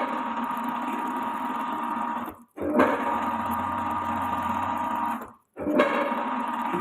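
Metal lathe running with a steady motor and gear whine. It breaks off to silence twice, about every three seconds, and starts again sharply each time.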